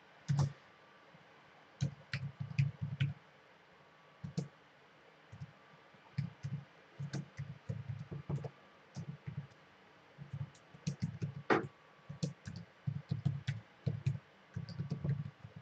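Computer keyboard typing: key presses in uneven bursts with short pauses between words.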